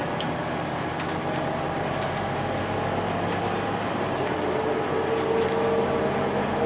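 Inside a moving single-deck city bus: steady engine and road noise, with a drivetrain whine that grows louder in the second half as the bus gathers speed, and light rattles from the cabin.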